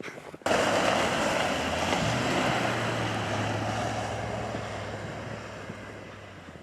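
Lifted GMC Denali truck being driven through snow and mud: a loud rushing noise of tires and slush starts suddenly about half a second in and slowly fades, with a steady engine hum underneath from about two seconds in.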